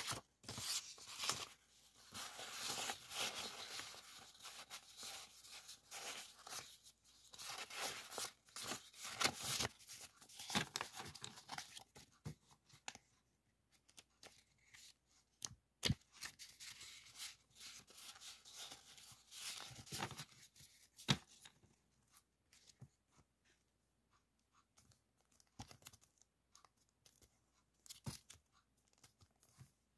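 A stack of thin printed background papers rustling and crinkling as they are shuffled and fanned through by hand. The rustling is dense for about the first half, then thins to scattered crinkles with a few sharp taps.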